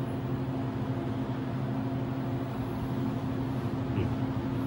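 Room tone: a steady low hum over a soft hiss, with one faint click about four seconds in.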